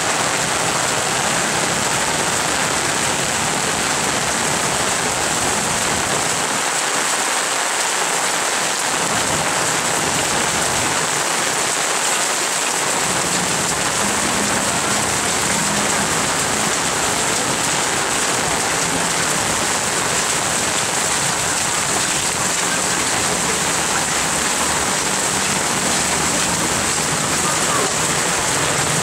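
Heavy rain falling steadily on a wet road.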